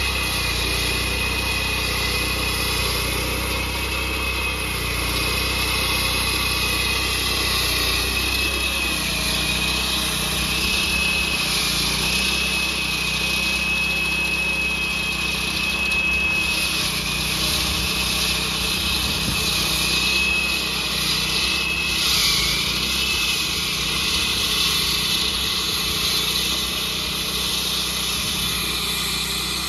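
Walk-behind gas-powered flat saw cutting a driveway with a water-fed diamond blade: the small engine runs steadily under load beneath a high whine from the blade in the cut. The whine dips in pitch briefly twice.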